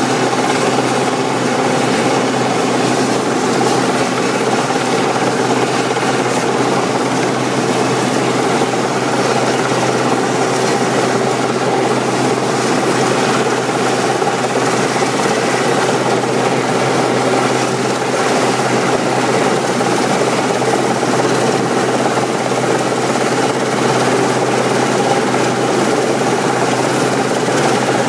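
RAF Westland Sea King search-and-rescue helicopter hovering close by: a loud, steady drone of its turbine engines and rotors, with a thin high whine above it.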